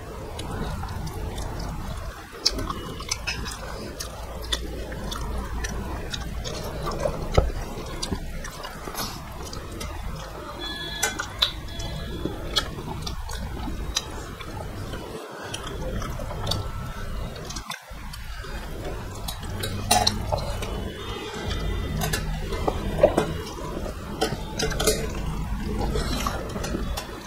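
Close-miked eating sounds: wet chewing and many sharp lip-smacking clicks as rice and fish curry are eaten by hand, over a low steady hum.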